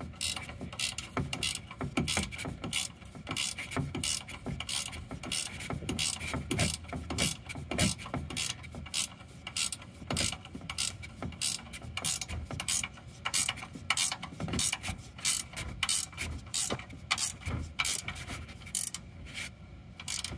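Hand ratchet wrench clicking steadily, a few clicks a second, as the mounting-bracket bolts of a new coolant bypass valve are snugged up; the clicking stops near the end.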